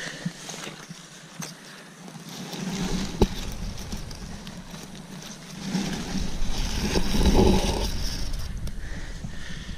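Footsteps through wet bog moss, getting louder from about halfway through, with one sharp click about three seconds in.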